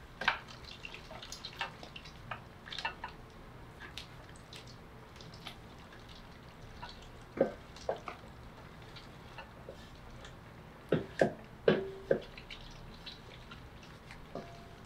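Hand-cranked Weston tomato strainer turning as raspberries are pressed through its screen: scattered soft clicks and taps from the crank and mechanism, then a handful of louder knocks in the second half, one ringing briefly.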